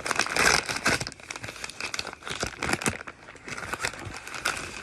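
An Amazon shipping package crinkling and rustling as it is handled, with many sharp crackles, louder in the first second or so.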